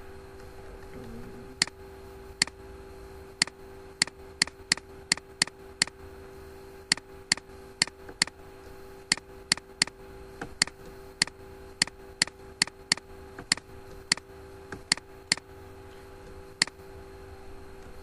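Computer mouse clicking, many short sharp clicks at an irregular pace and sometimes in quick pairs, over a steady low hum.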